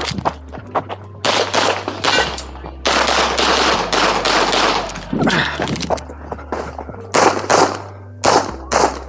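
CZ Shadow 2 9mm pistol firing rapid strings of shots in quick succession, with short pauses between the strings as the shooter moves between target arrays.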